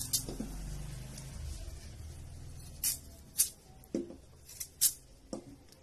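Kitchen knife peeling the skin off a raw sweet potato held in the hand: about seven short, crisp scraping strokes, most of them in the second half, over a low hum that fades out after about two and a half seconds.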